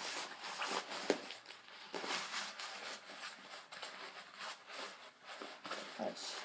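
Vera Bradley fabric bag being crunched up and stuffed into its zipped pouch by hand: irregular rustling and handling noises, with one sharper knock about a second in.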